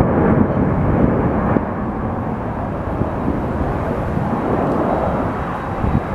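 Jet airliner's engines, a continuous rushing noise with a deep rumble, a little louder for the first second and a half and then holding steady.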